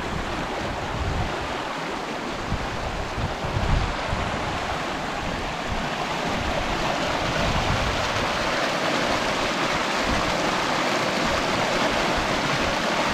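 Brook in spring flood, its strong current rushing steadily over the stones, getting louder about halfway through. Low gusts of wind buffet the microphone in the first few seconds.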